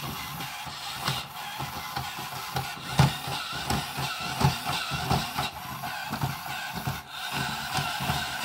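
Insect-a-zoid self-build walking robot running: its electric motors and gear train whir quietly, with frequent light knocks as its legs step on the wooden floor. It runs quietly now that the pinion gears have been moved up the motor shafts and no longer rub on the crown gears.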